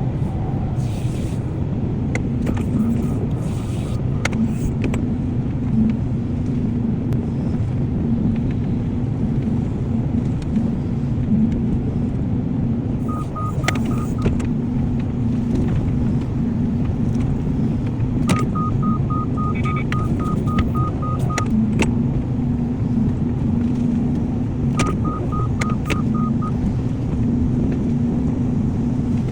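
Diesel engine of an excavator running steadily under work, with a few sharp clanks. Its warning beeper sounds in three runs of quick beeps, about four a second, the longest lasting about three seconds.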